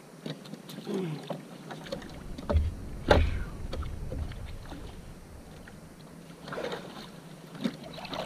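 Knocks and water sloshing against a plastic kayak hull as a fish is netted alongside; the loudest is a sharp knock about three seconds in, with a smaller one just before it.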